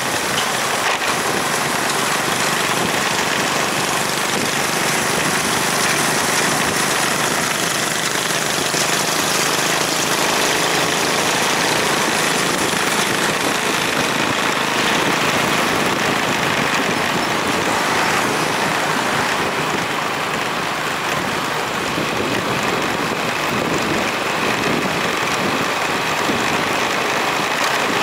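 A motorbike being ridden at a steady pace: a constant rush of wind and road noise with the bike's engine running underneath.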